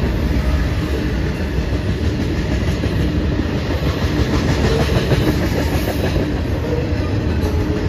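Freight train tank cars and boxcars rolling past close by: a steady low rumble and clatter of steel wheels on the rails.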